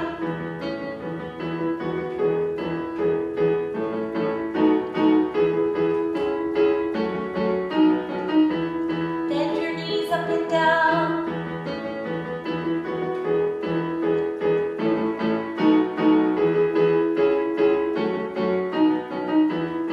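Yamaha digital keyboard in a piano voice playing repeated chords for a vocal warm-up exercise, with a woman's voice singing briefly with vibrato about ten seconds in.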